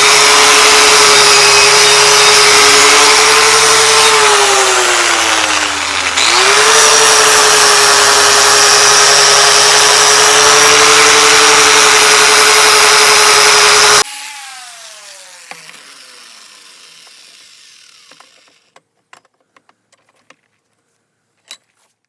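Power tool spinning a wire brush against the cultivator's metal housing, a loud scraping with a steady motor whine. The pitch sags about four seconds in as the brush is pressed harder, then recovers. About fourteen seconds in the tool is switched off and winds down with a falling whine, followed by a few faint clicks.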